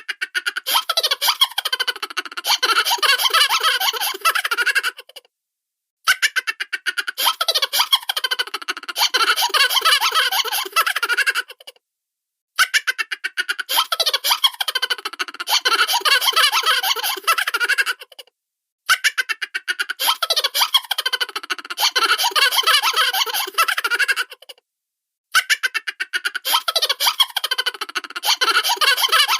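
Cartoon-style laughter and chuckles: high-pitched, rapid pulsing giggles in bursts of about five and a half seconds, separated by brief silences, with the same laugh repeating about five times.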